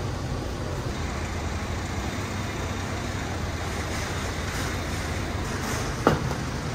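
Steady background din of a busy outdoor street market, with one sharp knock about six seconds in.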